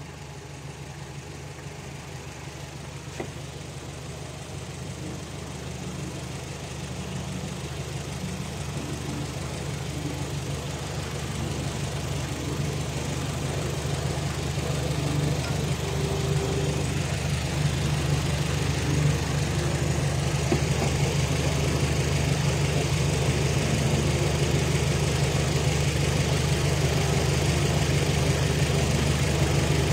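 A car engine idling steadily, growing gradually louder over the stretch.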